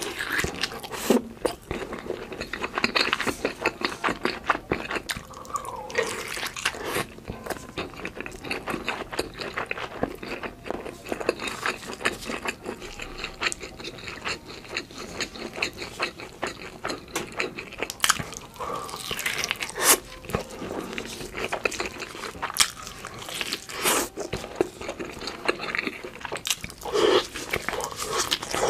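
Close-miked biting and chewing of crisp fried food dipped in cheese sauce: crunching bites, many small crackles and wet, sticky mouth sounds. Part of it is played fast-forwarded.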